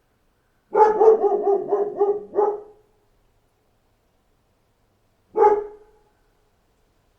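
A dog barking: a quick run of about six barks over two seconds, then a pause and a single bark about five seconds in.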